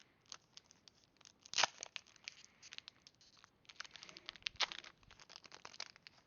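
Foil Pokémon booster pack wrapper being torn open and crinkled: a run of sharp crackles and rips, with two louder ones about one and a half seconds in and just past the middle.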